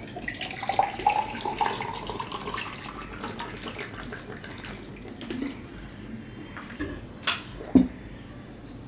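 Water poured from a plastic jug into a drinking glass, the pitch of the pour rising as the glass fills. Near the end come two sharp knocks as the glass is set down on the table.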